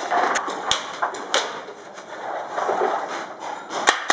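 Paintball markers firing a few scattered shots, heard as sharp pops over a rough background noise, the loudest shortly before the end.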